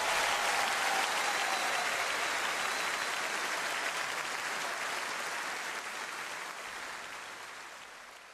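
A concert audience applauding, the applause fading out toward the end.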